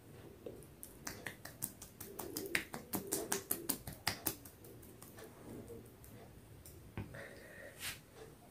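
Sharp clicking smacks of hands massaging a cream-covered face and jaw: a quick run of them starting about a second in and lasting about three seconds, then a couple more near the end.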